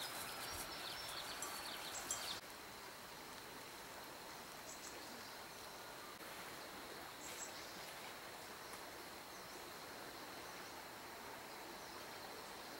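Faint outdoor ambience: a steady hiss with a thin, steady high insect tone. A few light rustles and clicks come in the first couple of seconds, then the sound drops quieter and even.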